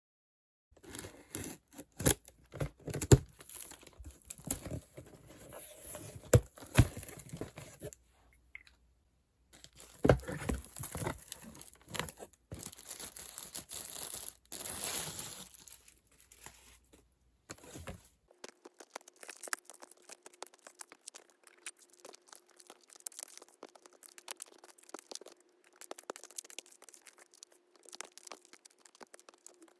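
Packaging being torn open and crinkled by hand, with sharp clicks and rustles. About 18 seconds in it changes to softer, scattered rustling and ticking over a faint steady hum.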